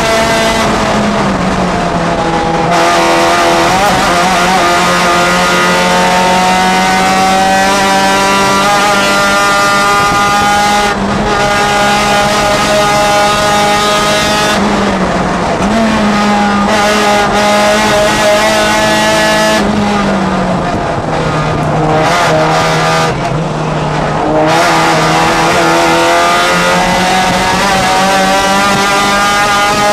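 Honda race car's four-cylinder engine heard from inside the cabin under racing load, its note climbing slowly through the gears and dipping several times as the driver lifts, brakes and shifts, most clearly around the middle and twice more in the last third.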